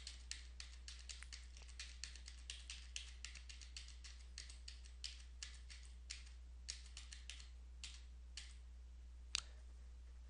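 Computer keyboard keys tapped in quick, irregular runs as lines of a file are deleted in a text editor. The taps come several a second at first, then thin out, with one sharper keystroke near the end, over a steady low hum.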